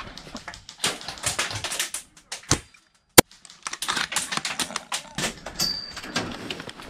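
Rapid clattering taps and knocks of footsteps and gear handling as a player moves through a gutted bus with an airsoft sniper rifle, with one sharp, loud click a little over three seconds in.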